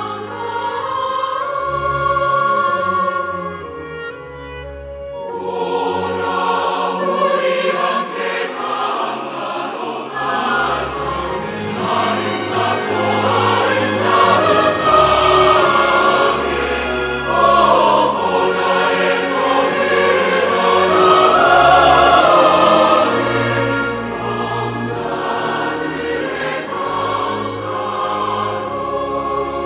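Large mixed church choir singing a hymn-anthem in Korean, with instruments accompanying. The sound thins to a softer passage around four seconds in, then swells full again and stays loud.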